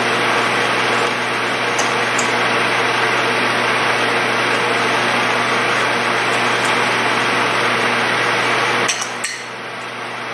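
Steady, loud fan-like rushing noise with a low hum underneath, which drops off suddenly about nine seconds in, with a brief click.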